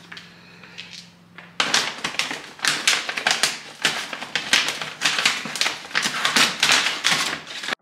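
Stiff brown paper grocery bag crinkling and rustling as it is opened and rummaged through, starting about one and a half seconds in, a dense run of crackles that stops abruptly.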